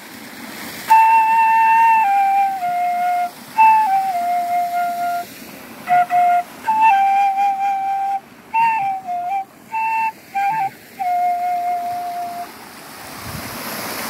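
A slow melody on a sogeum, a small Korean bamboo transverse flute: a string of held, clear notes stepping down and back up with short breaths between phrases. It begins about a second in and stops about two seconds before the end, over the steady rush of a stream.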